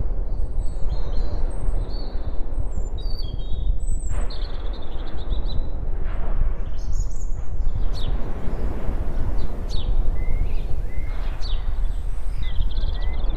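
Birds chirping and whistling in many short calls over a steady low rumbling background noise, like a nature ambience track.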